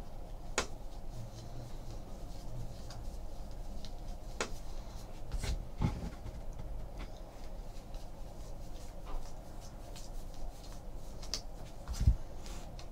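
Trading cards and foil packs being handled on a table: scattered light clicks and soft rustling, with a dull thump near the end.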